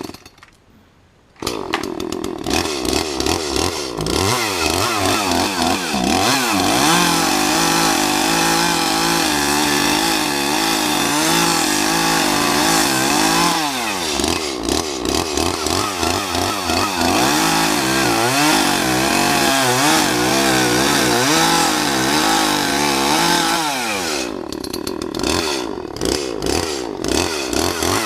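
Chainsaw making the back cut to fell a tree. It comes up to full speed about a second and a half in, then runs under load with its pitch wavering and dipping as it cuts. It eases off somewhat near the end.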